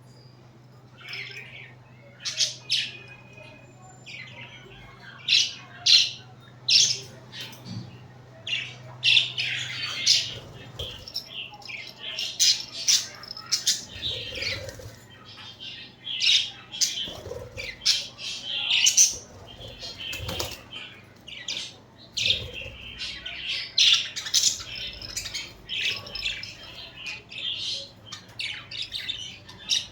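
Pet budgerigars chirping and squawking in quick, sharp calls, starting about two seconds in and keeping up a busy chatter, over a faint steady low hum.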